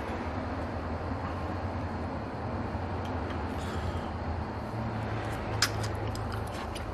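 Steady low hum and hiss of room background noise, with a single sharp click about five and a half seconds in.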